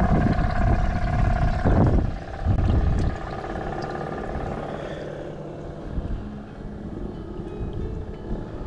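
A motor engine drones steadily in the background. It is loudest in the first two seconds, with a low rumble and a held hum, then settles into a quieter, lower steady drone.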